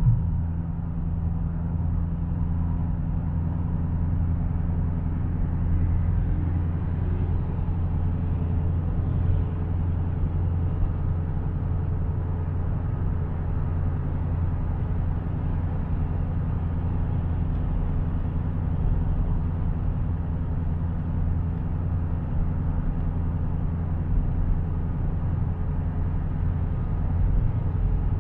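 A Dodge Challenger widebody's V8 drones steadily at highway cruising speed, heard from inside the cabin together with tyre and road noise. The pitch and level hold even, with no revving or gear changes.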